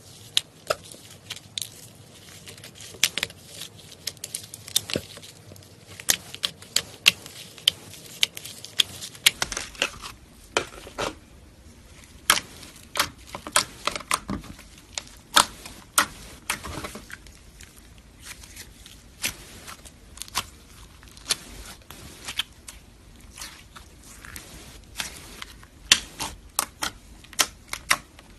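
Clear slime mixed with blue glitter and sequins being pressed and poked with the fingers, giving many sharp, irregular clicks and pops, several in quick succession at times.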